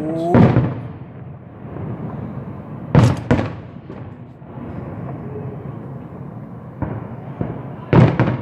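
Fireworks going off: a rising whistle ends in a loud bang just after the start, then two bangs close together about three seconds in, and two more near the end.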